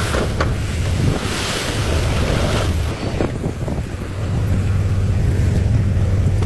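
Excavator's diesel engine running with a steady low hum. A rushing noise swells from about a second in and fades a couple of seconds later, as soil pours into water, with wind noise on the microphone.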